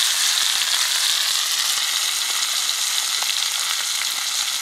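Catfish fillets frying in butter in a cast-iron skillet: a steady sizzling hiss with a few small pops.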